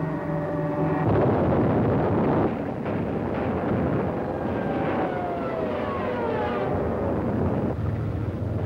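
Air-raid sound effects on an old film soundtrack: a continuous rumbling roar of explosions and fire, with several whistling tones gliding downward in pitch in the middle.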